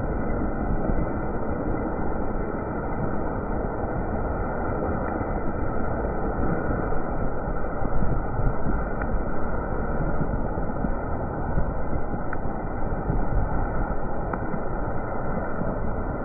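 Steady rushing ride noise from a Vespa scooter travelling on a rain-wet road: wind over the microphone mixed with the scooter's engine and tyre noise, holding an even level throughout.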